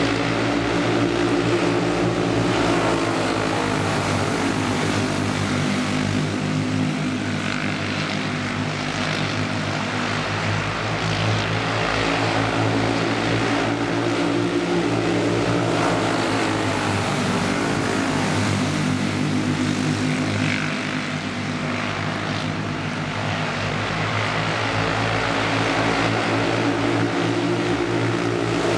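Several racing karts' small engines running together at speed, a continuous buzz whose pitch swells and falls away every ten to twelve seconds as the pack passes.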